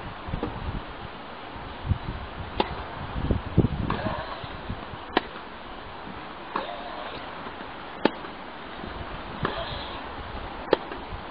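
Tennis rally: a ball struck back and forth by rackets, about six sharp thwacks spaced a second or two apart over a low background hum.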